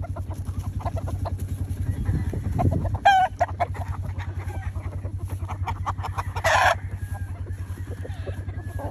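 Chickens calling: short clucks throughout, a rooster's crow about three seconds in, and a loud harsh squawk or crow about six and a half seconds in. A steady low pulsing hum runs underneath.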